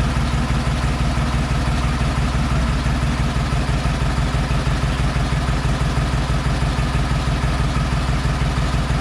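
An engine idling steadily, with an even, fast pulsing beat.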